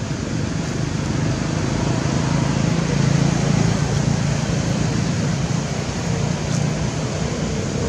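Steady low mechanical hum with an even hiss over it, like a running motor, growing a little louder in the first few seconds.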